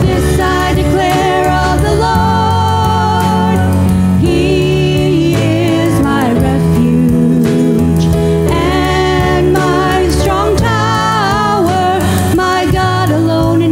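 Live worship band: vocalists singing a slow, sustained melody with vibrato over keyboard and a drum kit with cymbal hits.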